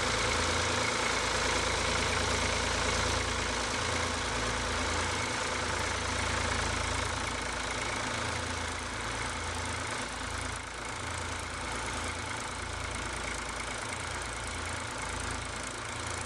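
Ford tractor engine running steadily while ploughing, its level easing off slowly as it goes.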